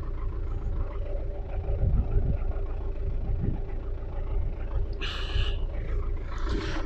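Belarus MTZ-82.1 tractor's four-cylinder diesel engine idling steadily while the chisel plough stands still.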